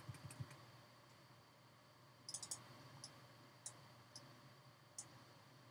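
Faint computer mouse clicks, a quick cluster of three about two seconds in and then single clicks every half second to a second, as points of a mask path are placed.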